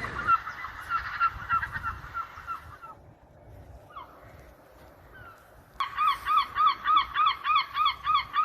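Gulls calling. A fast run of short, repeated calls fades out after about three seconds, followed by a quieter lull with a few scattered calls. From about six seconds in comes a loud, regular series of rising-and-falling yelping calls, about three a second.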